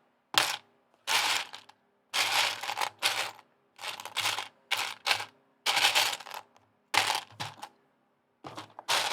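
Loose plastic Lego bricks clattering and rattling in a run of short bursts as hands rummage through a pile of pieces, with brief pauses in between.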